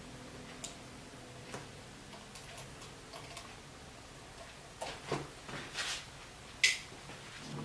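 Small clicks and taps of hands and a small tool working the plastic and metal parts at a Xiaomi M365 electric scooter's handlebar and dashboard, with a cluster of louder knocks about five to six seconds in and one sharp, loud click near the end.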